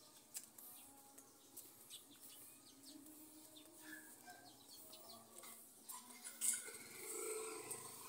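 Faint footsteps on a concrete lane, with a quiet outdoor background. A louder single knock comes about six and a half seconds in.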